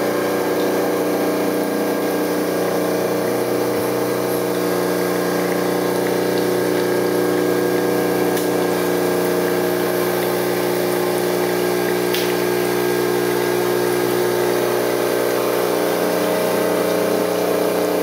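Espresso machine's pump buzzing steadily as it runs water through the boiler, flushing out the citric acid descaling solution and drawing fresh solution in.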